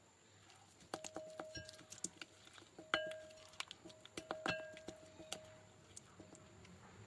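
A spoon stirring a thick yogurt-and-cream marinade in a cut-glass bowl: irregular scrapes and knocks against the glass, several of them setting the bowl ringing briefly. The stirring starts about a second in and dies away near the end.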